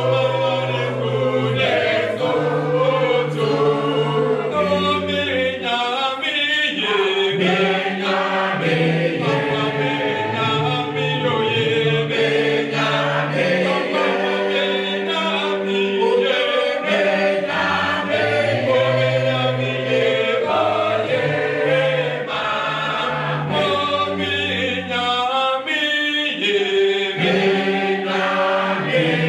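A choir singing a hymn a cappella in several parts, with low bass notes held beneath the melody.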